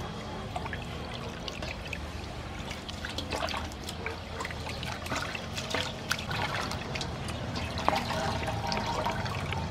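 Water splashing and trickling as a whole raw chicken is rubbed clean by hand in a large aluminium basin of water; near the end the bird is lifted and water runs off it back into the basin.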